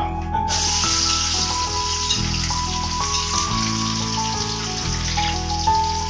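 Sliced onions sizzling as they hit hot oil in an aluminium pot, a steady hiss starting about half a second in, over background music.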